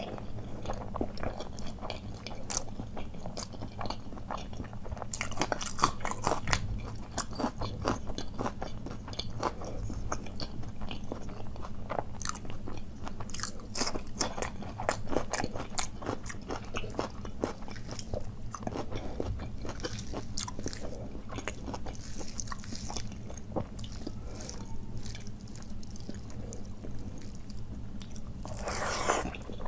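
A person chewing and crunching food close to the microphone, with many small crisp crackles and bites, over a steady low hum.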